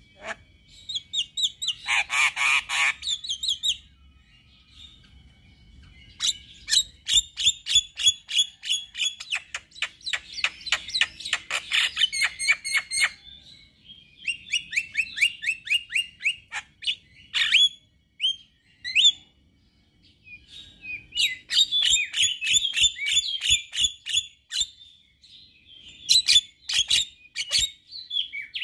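Male Javan myna singing: long bouts of fast, chattering runs of sharp repeated notes, broken by short pauses and a few separate calls.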